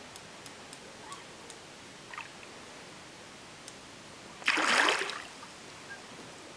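A hooked fish splashing once at the water's surface while being played on a rod: a single short, loud splash about four and a half seconds in, over faint steady background noise.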